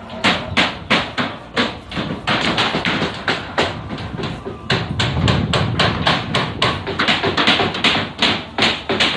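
Hammering while a roof is being repaired: a quick, irregular run of sharp hammer strikes, about three a second.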